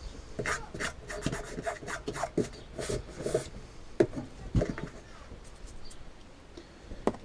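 Car stereo unit scraping and rubbing against the edges of a jigsaw-cut hole in a wooden panel as it is pushed into place, with irregular light knocks.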